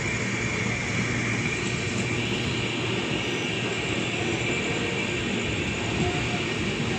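Indian Railways express train running at speed, heard from the open doorway of a sleeper coach: a steady rumble of wheels on rails mixed with rushing air.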